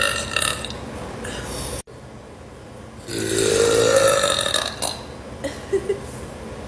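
A woman burping: the end of one burp fades just after the start. About three seconds in comes a long burp of nearly two seconds, its pitch rising slightly.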